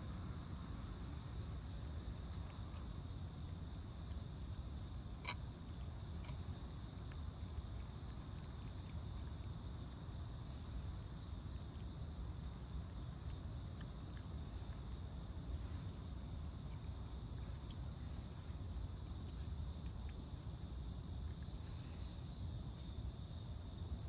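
Night insects chirring in a steady, continuous high trill over a low background rumble, with a few faint clicks, the clearest about five seconds in.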